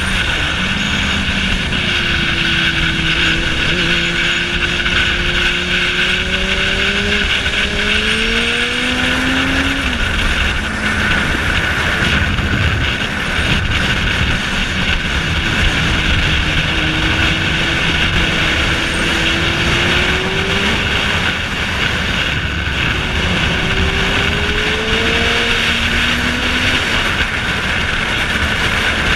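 Motorcycle engine heard from the rider's seat under heavy wind rush, its note climbing slowly as the bike accelerates, easing off about a third of the way in and climbing again past the middle.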